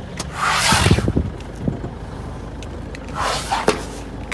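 Safari jeep engine running steadily at a low hum, with two short bursts of scraping or rustling noise, one about half a second in and one about three seconds in.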